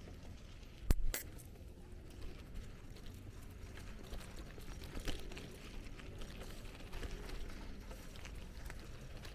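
Riding on a bicycle: a low rumble with scattered light rattling clicks, and two sharp knocks close together about a second in.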